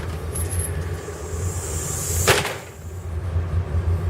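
Storm door swinging shut under a newly installed closer cylinder: a rising hiss of air, then the door bangs shut and latches a little over two seconds in. A steady low hum runs underneath.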